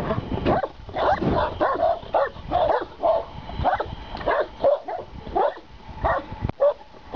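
Caucasian shepherd dogs barking repeatedly, about two to three barks a second.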